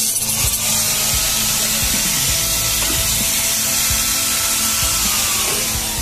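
Electric angle grinder with a thin cutting disc running at speed, cutting into the steel shell of a motorcycle's stock exhaust muffler.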